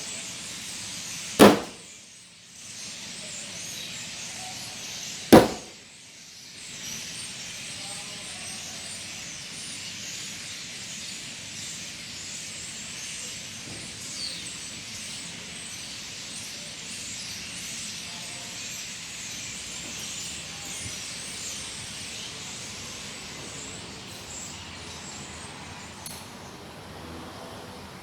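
Dense, steady chatter of a large flock of birds gathered together, with two sharp bangs cutting through it, about one and a half seconds in and again about four seconds later.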